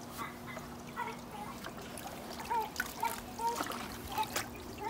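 Water sloshing and dripping as a small hand net is swept through a shallow goldfish tub, with irregular drips and small splashes that grow busier about halfway through.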